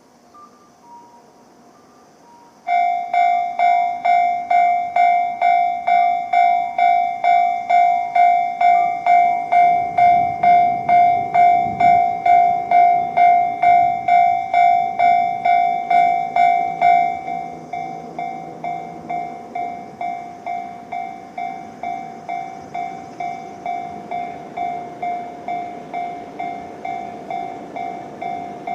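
Japanese level-crossing warning bell, the electronic JR-standard tone, starts about three seconds in and rings at about two strikes a second, signalling an approaching tram. About seventeen seconds in it drops to a lower volume and keeps ringing. A low rumble passes around ten to twelve seconds in.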